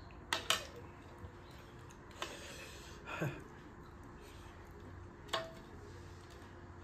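Metal spoons and forks clinking and scraping on ceramic plates: two quick clinks near the start, another about two seconds in, and a clink with a short ring about five seconds in. A brief sound falling in pitch comes about three seconds in.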